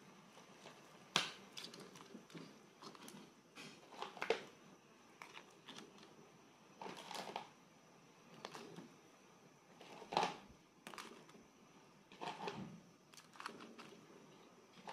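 Whole blue swimmer crabs being put one after another into a pot of broth: irregular knocks and clatters of shell against shell and against the pot, with small splashes. The sharpest knocks come about a second in and again about ten seconds in.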